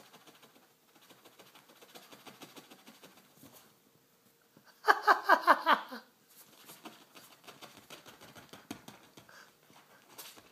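Soft, fast irregular patter of a tickled dog's leg kicking and scratching against upholstery. About halfway through comes a loud one-second burst of rapid pulsed voice, about eight quick pulses falling in pitch.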